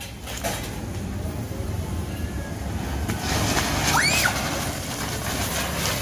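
Ground firework fountain hissing as it sprays sparks. The rushing hiss starts as the fuse catches and grows steadily louder.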